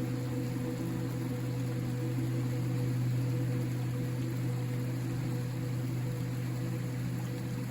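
River flowing: a steady, deep rush of water, heavy in the low end and unchanging throughout.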